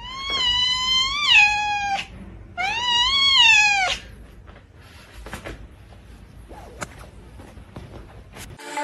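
A house cat meowing twice, two long drawn-out meows of about a second and a half each, rising and then falling in pitch.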